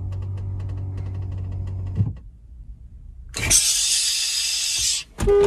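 A steady low hum for about two seconds, then, after a short pause, a man's loud breathy hissing cry with his head thrown back, lasting about a second and a half.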